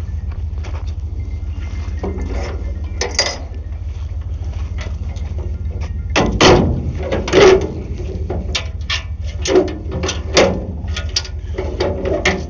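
Truck engine idling with a steady low rumble. From about six seconds in come a series of loud metal clanks and bangs as a load of dirt is dumped.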